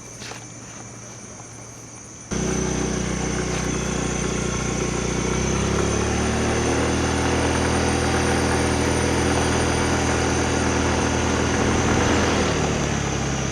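Small motorbike engine running steadily, starting suddenly about two seconds in, with its pitch shifting around five or six seconds in.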